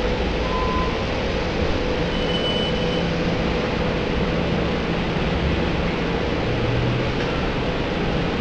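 SEPTA Silverliner IV electric commuter railcar moving slowly along the platform close by: a steady noise with a low hum running under it.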